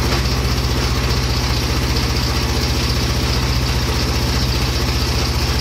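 Engine of a homemade mini excavator running at a steady speed.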